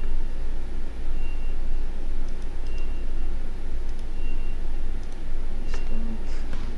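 Steady low hum, with a few faint mouse clicks and a short high beep that recurs about every second and a half.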